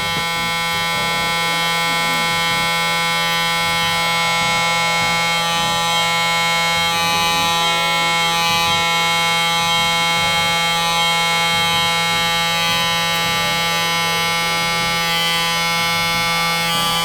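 Electric hair trimmer running with a steady, even buzz as it goes over the hairline.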